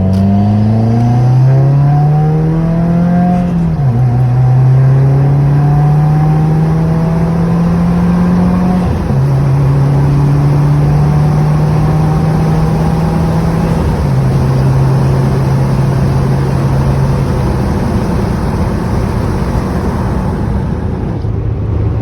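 2016 Subaru WRX's turbocharged flat-four accelerating hard up through the gears: the engine climbs in pitch, drops at an upshift about 4 s in, climbs again, and drops at a second upshift about 9 s in. It then runs at a steady pitch, drops once more at about 14 s, and fades under road and wind noise near the end.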